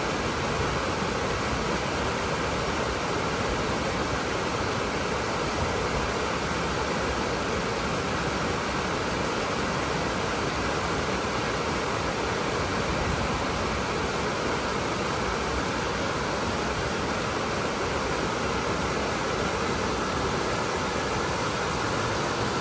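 A creek swollen with snowmelt pouring over a low rocky cascade, with white water rushing steadily and evenly.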